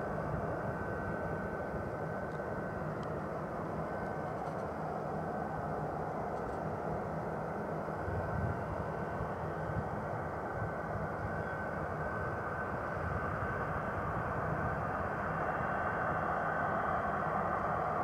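Boeing 737-200's Pratt & Whitney JT8D turbofan engines running at taxi power: a steady rushing hum with a high whine held on one note, growing a little louder near the end.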